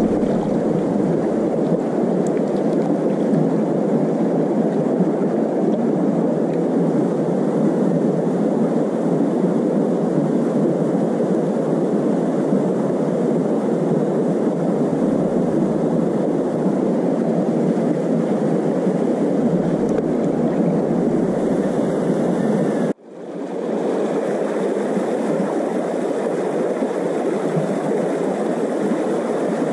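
Shallow river water running steadily over stones in a riffle, a constant rushing. It drops out for a moment about 23 seconds in, then resumes.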